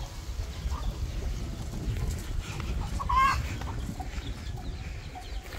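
Chickens clucking here and there, with one short, louder squawk about three seconds in.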